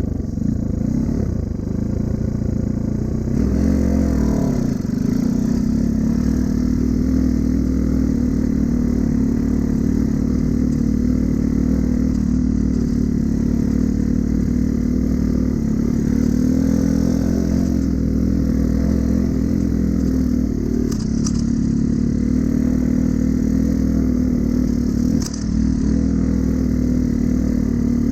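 Honda Cub's small single-cylinder four-stroke engine running steadily under way, with a couple of brief knocks in the second half.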